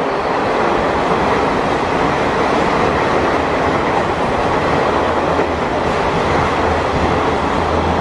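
Indian Railways passenger train running past, a loud steady rush of coach wheels on the rails. A low hum grows in over the last few seconds.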